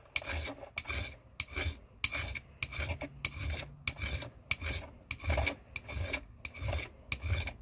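Coarse metal hand file rasping in quick, even back-and-forth strokes across the end of a silverware piece clamped in a steel miter vise. The edge is being filed down flat to a flush surface for a tight solder seam.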